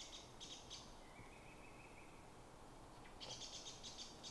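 Faint bird calls: short bursts of high, rapid chirping at the start and again near the end, with one thin drawn-out note around the middle.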